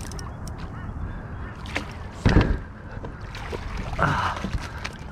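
Water splashing as a flathead is scooped into a landing net beside a kayak and the net is lifted out, water pouring off it. The loudest moment is a heavy splash or knock about two seconds in, with a shorter pitched sound around four seconds.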